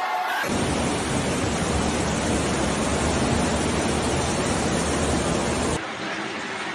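Strong cyclone wind and heavy rain: a loud, steady rushing noise that cuts off suddenly about a second before the end, leaving a quieter rush.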